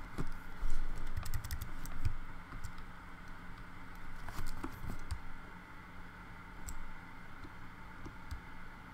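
Scattered clicks of a computer keyboard and mouse, bunched near the start and again about halfway through, over a steady faint hum.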